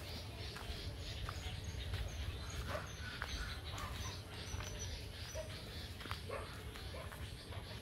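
A few short animal calls, likely a dog barking some way off, over steady rustle and low rumble from someone walking a dirt path with a handheld camera.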